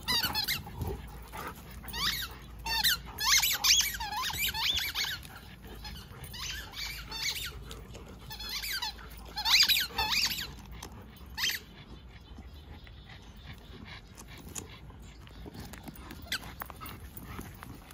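A dog whining in repeated high-pitched squeaky whines that rise and fall in pitch, in two bouts, the second ending about two-thirds of the way through, typical of a dog asking another to play.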